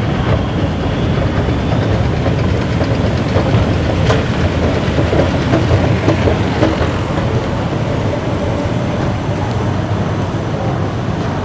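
Steady low rumble of an MRT train running in the underground station beyond the platform screen doors, with a sharp click about four seconds in.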